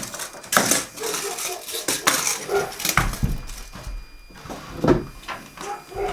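Irregular clattering knocks and metallic clinks of tools and building materials being handled while a piece is measured for cutting.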